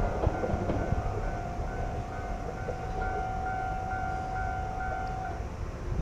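Japanese level-crossing warning bell ringing in a steady on-off pattern about twice a second, over a fainter steady tone. Both stop together about five seconds in as the train clears the crossing, with the train's running sound fading underneath.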